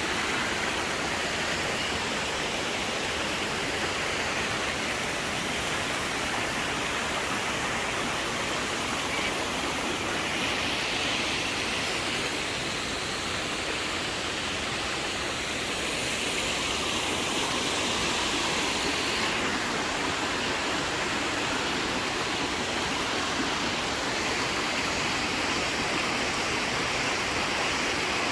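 Rushing river water, a steady even rush with slight shifts in tone about 12 and 19 seconds in.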